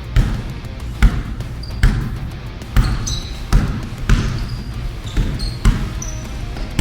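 Basketball being dribbled on a court, a sharp bounce about every second, with short high sneaker squeaks on the floor in between.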